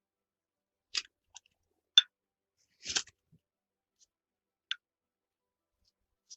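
A few sharp clicks and knocks of kitchen utensils and dishes being handled while egg wash is readied, irregularly spaced, the loudest about two seconds in.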